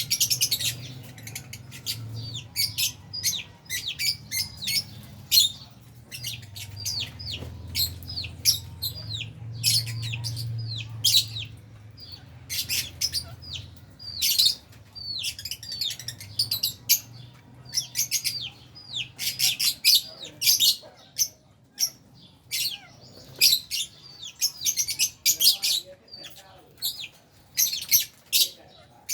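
A colony of lovebirds (albino and Fisher's) chirping continuously, with many short, high chirps overlapping in rapid clusters and brief lulls between them.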